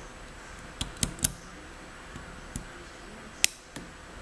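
A lock pick working the pin stack of a Toolzone concealed-shackle van lock during single-pin picking: about six small, sharp metallic clicks, spread irregularly over a faint steady background hiss.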